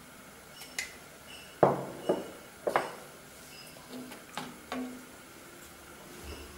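Steel ladle stirring thin tamarind gravy in a clay pot, knocking against the pot's sides: several short, sharp clinks at uneven intervals, two of them louder than the rest.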